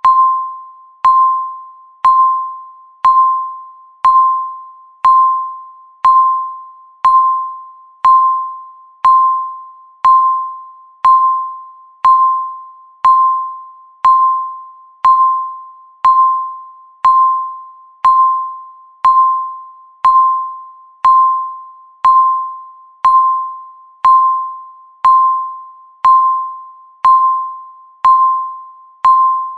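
Countdown timer beeping once a second, about thirty times. Each beep is a single mid-pitched electronic ding that starts sharply and fades away before the next.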